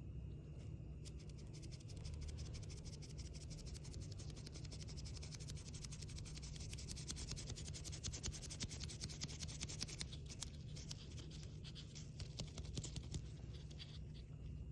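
A paint tool scraping and stirring through acrylic paint: a dense, fast, scratchy crackle that thins out over the last few seconds, over a steady low hum.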